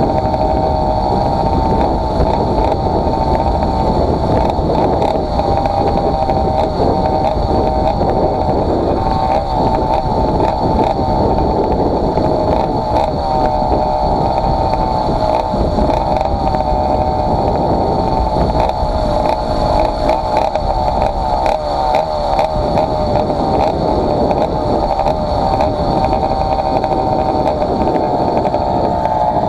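Two-stroke motorized-bicycle kit engine (80cc class, 49 mm cylinder) running under way, its pitch wavering up and down with the throttle, over a low wind rumble on the microphone. The engine is on a doubled base gasket, which the owner says cost it power.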